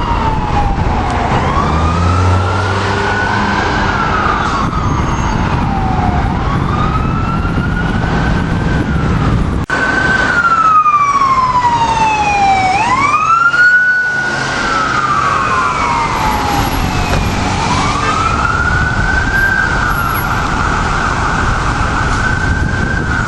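Emergency-vehicle sirens on responding fire apparatus wailing, each rising and falling slowly, with two sirens overlapping out of step partway through, over engine and road rumble.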